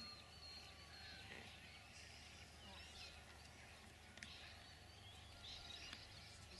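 Near silence, with faint scattered bird chirps in the background over a low steady hum.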